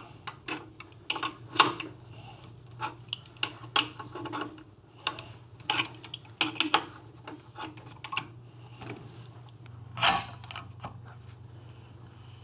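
Irregular metallic clicks and clinks as a thread is tapped by hand in a part held in a metal lathe's chuck, the tap kept square by the tailstock centre. A steady low hum runs underneath, and one sharper knock comes near the end.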